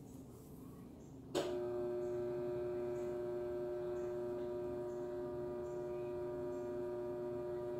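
A steady, unwavering hum-like tone that starts with a click about a second in, holds for about six seconds and then stops.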